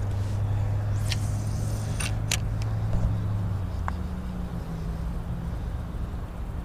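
A low, steady engine hum, with a few sharp clicks about one and two seconds in.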